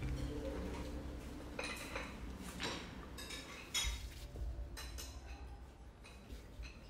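Canteen sounds of cups and cutlery clinking and tapping on tables: a scattered series of light knocks over a low, steady room rumble.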